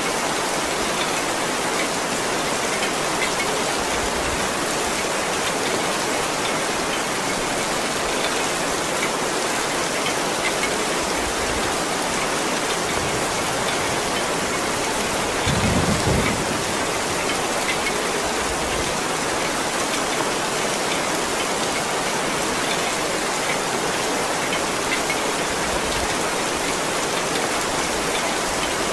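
Heavy rain falling steadily, a dense hiss with scattered drop splashes. About halfway through there is a brief low rumble.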